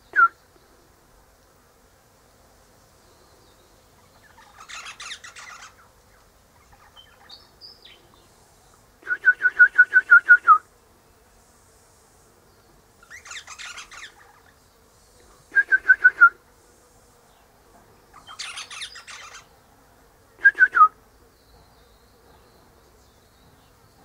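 Eastern rosella calling in bouts: loud runs of quickly repeated piping notes, several a second and dropping in pitch at the end, alternating with quieter, scratchy chatter.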